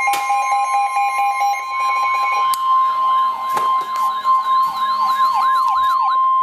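Emergency Alert System attention tone: a steady high tone near 1 kHz, with other steady tones sounding with it for the first two and a half seconds. From about two seconds in, a siren wails up and down over it, about twice a second, its swings growing wider toward the end.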